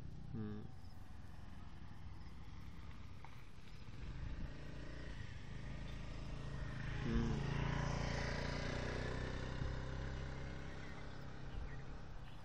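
A motor vehicle's engine running nearby, growing louder about seven seconds in as it passes and then fading, with two short pitched sounds, one near the start and one as it passes.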